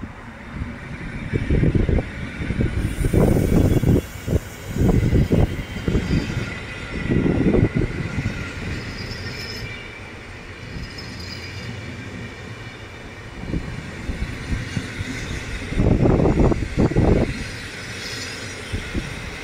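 PKP Intercity passenger coaches rolling past on the rails, a steady rail and wheel noise broken by irregular heavy low surges, strongest in the first several seconds and again about three-quarters of the way through.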